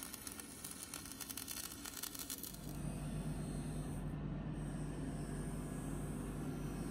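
Stick welding arc crackling as a bead is run on the steel housing of a truck tie rod end. About two and a half seconds in the crackle stops and a steady low hum carries on.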